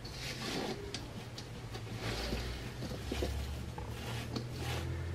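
Silicone spatula gently stirring sliced apples with sugar and cinnamon in a stainless steel mixing bowl: faint soft scrapes and small clicks over a low steady hum.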